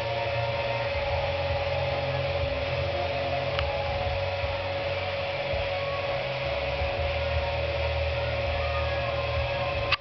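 Steady mechanical hum holding one constant mid-pitched tone over a low rumble and hiss, with a single faint click about three and a half seconds in.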